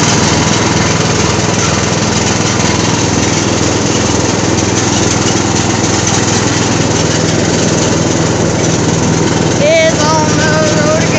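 Riding lawn mower's engine running steadily while mowing grass, a loud, even drone. A short pitched voice sound rises over it near the end.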